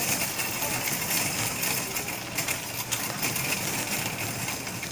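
Shopping cart rolling across a supermarket floor: a steady rumble from the wheels with scattered small clicks and knocks, picked up through the cart's frame.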